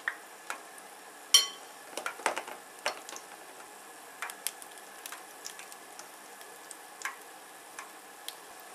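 Sata andagi dough balls deep-frying slowly in oil at a low 160 °C: a steady sizzling hiss with scattered pops and crackles, thickest around two to three seconds in. One sharp, ringing clink about a second and a half in is the loudest sound.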